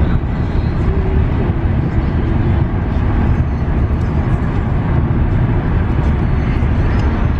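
Steady low rumble of a moving vehicle heard from inside it.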